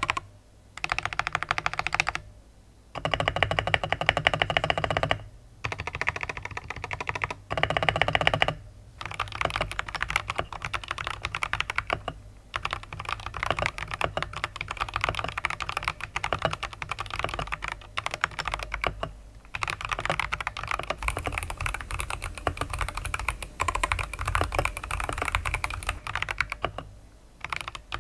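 Typing on a Skyloong GK75 keyboard with Glacier Optical Green v3 tactile switches. For about the first nine seconds it comes in short, fast bursts of keystrokes with gaps between, then it settles into continuous typing with brief pauses.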